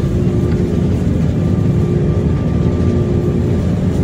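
Jet airliner cabin noise while the plane moves on the ground: a steady, loud low rumble from the engines and the rolling airframe, with a faint steady hum on top.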